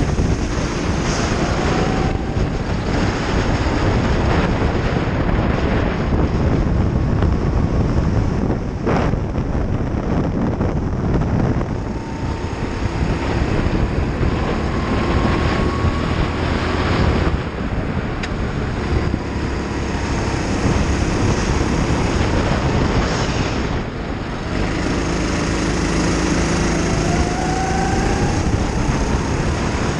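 Racing kart engine running hard, heard from an onboard camera with wind noise over it; its pitch climbs along the straights, and the level dips briefly three times.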